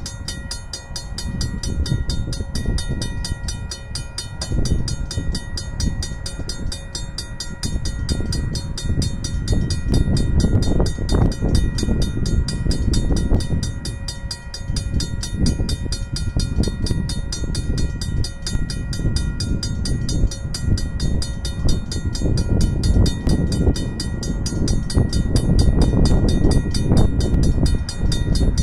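Level crossing warning bells ringing fast and evenly, the alarm for an approaching train, over gusty wind buffeting the microphone.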